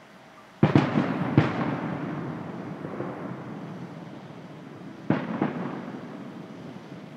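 Aerial firework shells bursting: two sharp booms about half a second apart, just under a second in, each dying away slowly. Two weaker booms follow about five seconds in.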